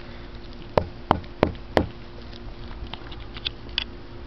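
Four sharp taps of a finger on painted exterior cladding, close together in the first two seconds, then a few fainter clicks. The cladding is water-damaged and coming loose.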